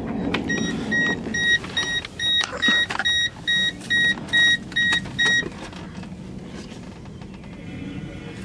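Dashboard warning chime of a 1997 Mercedes-Benz E300 diesel beeping evenly about twice a second, with the driver's door open, then stopping about five and a half seconds in. Light clicks and knocks of handling in the cabin.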